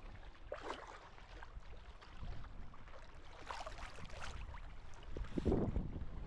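Seawater sloshing and splashing around a person's legs as he wades deeper over a rocky bottom, in several short splashes with a louder one near the end.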